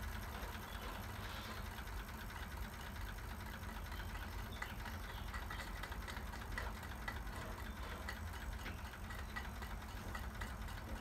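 Wilesco D305 toy steam engine running on little remaining steam, its flywheel turning with faint irregular ticks over a steady low rumble.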